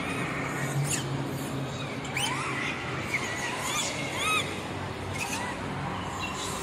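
Short, high, arching animal calls, several in quick succession in the middle, over a steady low hum.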